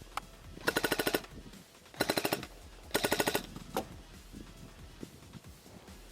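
Airsoft electric gun firing on full auto: three short bursts of rapid, evenly spaced shots about a second apart, with a single shot just before and just after.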